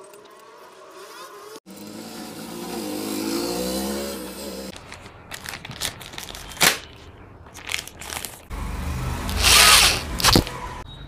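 A small power tool whirring in short runs, with clicks and rattles of parts being handled; the loudest run, about a second long, comes near the end.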